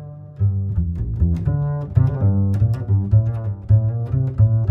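Background music: a bouncy run of short, plucked low notes.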